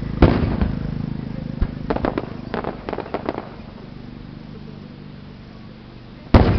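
Aerial fireworks shells bursting. A loud boom comes just after the start, echoing, then a quick run of sharper pops a couple of seconds later, and another loud boom near the end.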